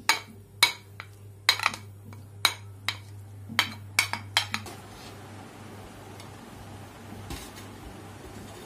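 Serving spoon and ceramic plates clinking as rice is dished out of a pot: about ten sharp clinks in the first four and a half seconds, then only a steady low hiss.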